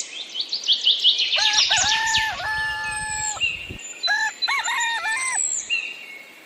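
Small birds chirping in quick high notes, then a rooster crowing once, a long held call about two seconds long, followed by a few shorter crowing calls.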